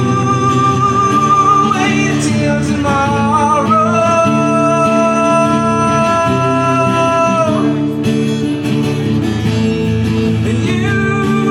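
Live acoustic music: guitar chords under a high melody line that slides up and then holds long, steady notes for several seconds before dropping away, without words.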